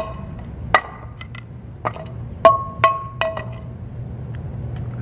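An egg tapped repeatedly against the rim of a non-stick frying pan to crack it: about six sharp knocks over three seconds, each leaving the metal pan ringing briefly.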